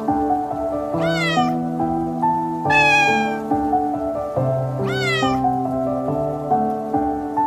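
A cat meowing three times over background music of sustained chords. The middle meow is the longest and falls in pitch; the other two rise and then fall.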